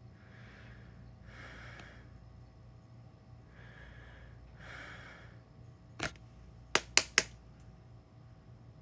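A person breathing audibly, two pairs of breaths in the first five seconds, then four sharp clicks: one about six seconds in and three in quick succession a moment later.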